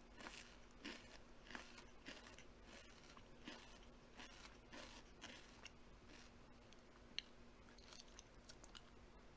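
A person chewing something crunchy, with quiet crunches about every half second that thin out to a few scattered clicks in the last few seconds.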